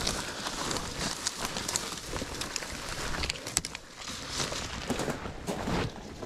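Hiking footsteps on a dirt and stone trail: an irregular run of crunching steps with rustling and small crackles.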